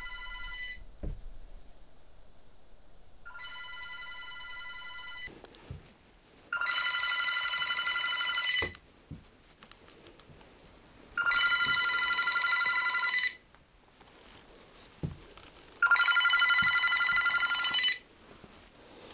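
Corded desk telephone's electronic ringer trilling in rings of about two seconds, repeating roughly every four and a half seconds. The first two rings are fainter, the last three loud and close, with faint knocks between rings.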